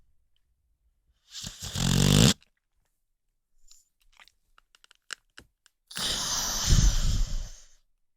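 American Pit Bull Terrier snoring in its sleep: two snores about four and a half seconds apart, the first about a second long and the second about two seconds, with a few faint clicks between them.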